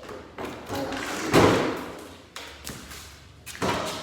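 A Razor electric kids' four-wheeler being turned over by hand: a heavy thud about a second and a half in, with several lighter knocks and bumps before and after.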